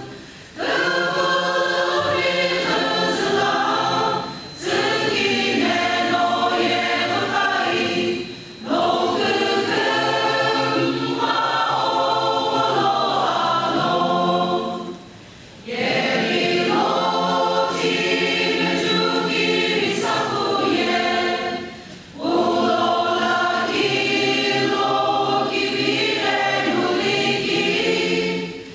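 A large mixed church choir singing together, in long phrases separated by short pauses for breath.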